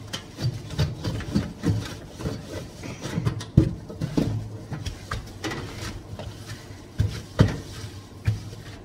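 Wet cloth wiping and rubbing the inside of an oven, with irregular soft knocks of the hand and cloth against the oven walls. The louder knocks come about three and a half seconds in and twice around seven seconds in.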